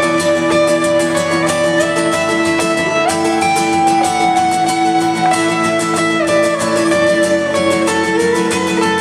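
Live acoustic music, an instrumental passage: a guitar strummed in a quick, even rhythm under a long-held melody line that slides slowly between notes.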